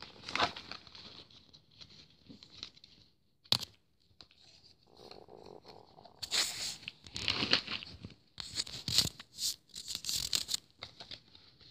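Rustling and crinkling of a bag of toys being rummaged through, with toys handled and pulled free, in irregular bursts that get busier in the second half.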